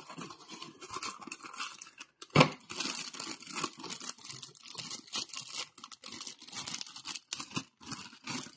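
Clear plastic packaging bag crinkling and rustling as hands pull it open and handle it, with cardboard packaging rubbing at the start. A loud sharp crackle about two seconds in, then dense irregular crinkling.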